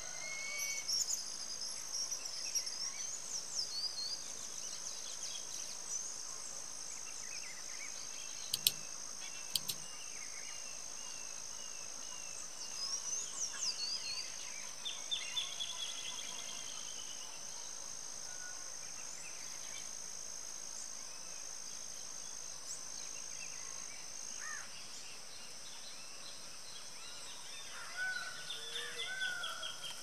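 Natural ambience: a steady high-pitched insect drone with scattered calls of small birds, including quick descending chirp series, and more bird calls near the end. Two sharp clicks about a second apart, roughly a third of the way in, are the loudest sounds.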